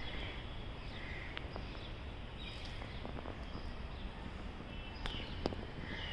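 Outdoor ambience: a few short bird chirps and calls over steady low background noise, with a few faint clicks in the middle.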